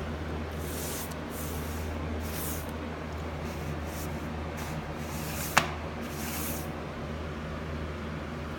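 Paintbrush strokes swishing primer onto wood trim, a series of short, irregular hissing swipes over a steady low hum, with one sharp click about five and a half seconds in.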